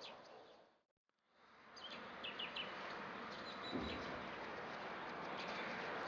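Small songbirds chirping outdoors: scattered short, high chirps over a steady background hiss. The sound fades out to silence about a second in and fades back up. There is a soft low thump near the middle.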